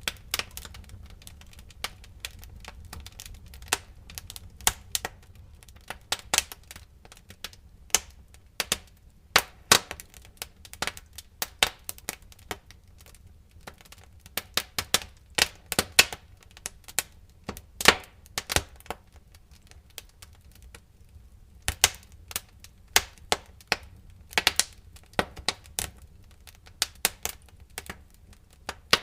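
Wood fire in a fireplace crackling: irregular sharp pops and snaps, some in quick clusters, over a low steady rumble.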